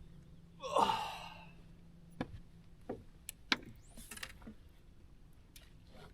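A person lets out a loud sigh about a second in, followed by a few light clicks and knocks.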